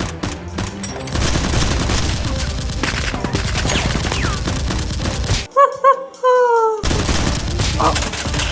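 Rapid bursts of gunfire, dense and continuous, as in a Nerf battle scene. About two-thirds through, the firing breaks off for a second, filled by two short pitched notes and a falling tone, then resumes.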